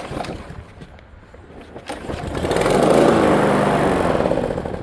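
Walk-behind gasoline lawn mower being pull-started: a sharp click, then about two seconds in the engine catches and runs loudly with a wavering pitch, sagging near the end. The engine starts but won't stay running.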